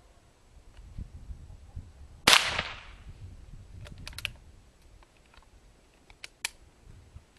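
Single shot from a Henry .22 LR lever-action rifle about two seconds in, with a short ringing tail, followed by a few sharp clicks from the rifle's action.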